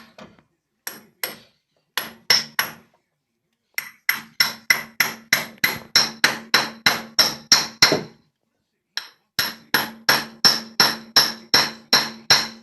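Hammer blows on a nut threaded onto the end of a car's front axle shaft, driving the shaft tip into the retaining clip of a new CV joint. The metallic strikes come in runs of about three a second, with short pauses between runs.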